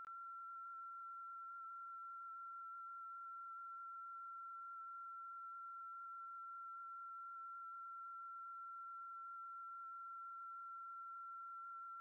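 A single steady electronic tone, a pure beep held at one unchanging high pitch without a break.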